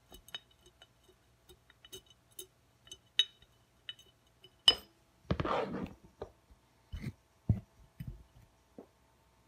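Wooden tool handle tapping and clicking against a glass jar while pressing window-screen mesh down onto pebbles, with a short scraping rustle about five seconds in and a few duller knocks after.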